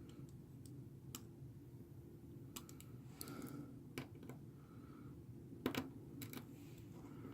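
Scattered faint clicks and taps, irregularly spaced, from small phone screws and a precision screwdriver being handled and driven into a smartphone's plastic frame.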